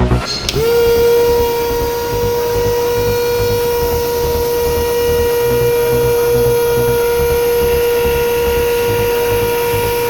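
Small DC motor spinning up and then running with a steady, high whine that has overtones, likely driving the homemade helicopter's propeller. The pitch climbs quickly at switch-on, about half a second in, then holds level.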